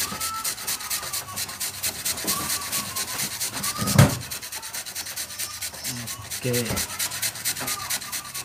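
Fresh turmeric root being grated on a small metal hand grater, its tip resting on a plastic cutting board: quick, even rasping strokes, with one sharp knock about four seconds in.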